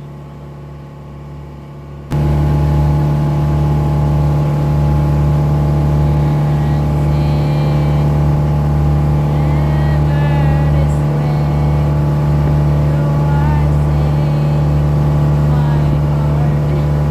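A boat's engine running at a loud, steady drone, cutting in abruptly about two seconds in over a quieter hum, with faint voices under it.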